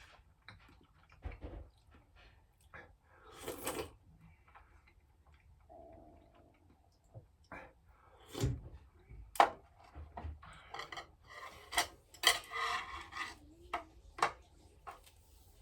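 Scattered light clicks and knocks of objects being handled, with two short rustling noises; the sharpest knock comes a little over nine seconds in.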